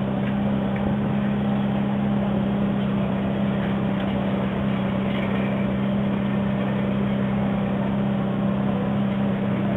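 Steady low drone and road noise of a motor vehicle heard from inside while it drives, with an even hum that does not change in pitch.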